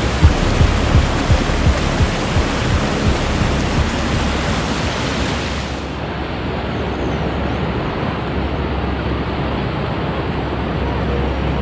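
Whitewater rapids of a fast glacial river rushing over rock: a steady broad rush. Regular low thumps, about two and a half a second, run through the first three seconds. About six seconds in, the sound turns duller as the high hiss drops away.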